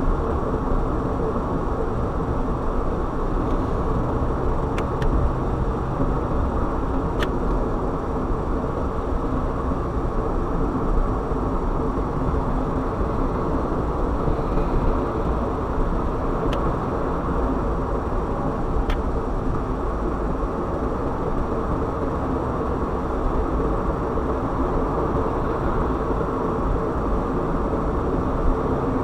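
Steady noise of a car driving on the road: tyres and engine running at an even pace, with a few faint ticks.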